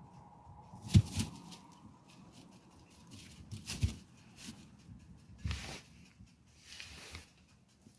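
Rabbits shifting about on straw bedding: faint rustling of the straw, with a few short soft thumps about a second in, near four seconds and around five and a half seconds.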